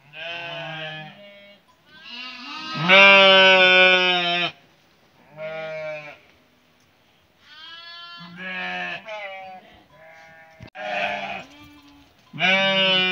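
Sheep bleating, many calls one after another and sometimes overlapping, from several animals, with the loudest long bleat about three seconds in.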